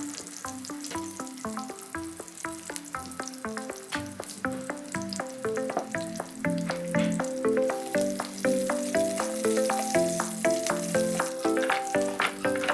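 Background music, a light melody of short, quick notes, over the sizzle of food frying in oil in a pan; the sizzling gets louder partway through.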